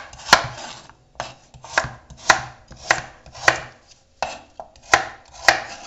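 Knife chopping a carrot on a wooden cutting board: about nine separate cuts, roughly one every half second, each ending in a sharp knock of the blade on the board.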